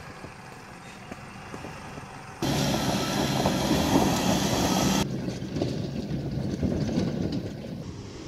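A 4WD ute's engine working at low speed as it crawls over a loose rocky track. The sound jumps suddenly louder about two and a half seconds in and drops back about two seconds later.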